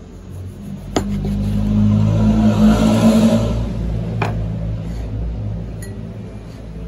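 A kitchen knife chops through a calamansi onto a plastic cutting board with a sharp knock about a second in, and is laid down on the board with a second knock about four seconds in. Under them runs a steady low hum, and a low rumble swells and fades in the middle.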